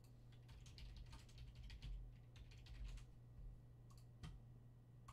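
Faint typing on a computer keyboard: a quick run of keystrokes for about three seconds, then two more taps near the end.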